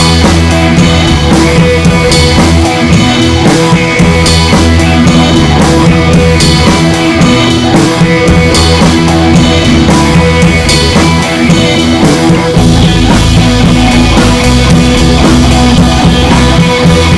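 Loud background music with drums and guitar and a steady beat.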